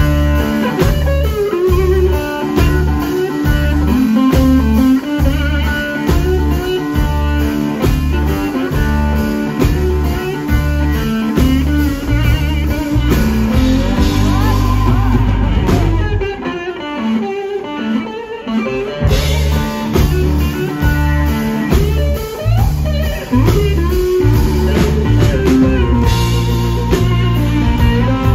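Live blues-rock band: electric guitar over bass and drums, with a steady beat. The bass and drums drop out for about three seconds past the middle, then the full band comes back in.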